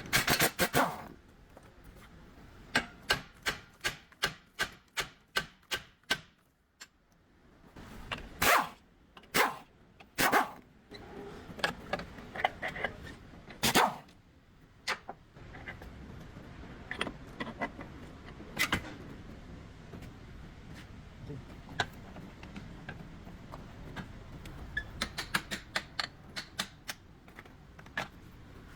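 Hand-tool knocks and taps during car repair work: a regular run of about two sharp taps a second a few seconds in, then a handful of heavier strikes around the middle, then lighter scattered clicks.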